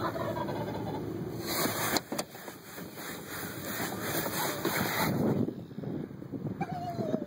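Rushing, wind-like noise on the microphone, heaviest in the middle, with a couple of sharp knocks about two seconds in, as the camera is jostled during a scuffle with a strutting wild turkey gobbler. A short falling call comes near the end.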